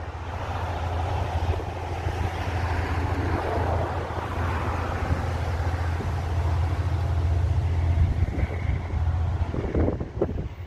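A large engine running steadily: a low drone under a rushing noise, with a few short knocks near the end.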